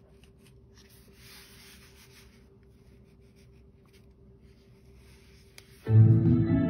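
Faint rubbing of hands turning a Zamkol portable Bluetooth speaker, then about six seconds in the speaker suddenly sounds a loud pitched tone, much louder than the handling, that carries on past the end.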